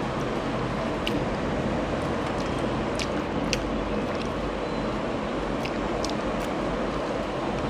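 Soft, scattered clicks and squishes of fingers picking through fish curry on a plate and a mouthful being eaten. These sit under a louder, steady rushing background noise.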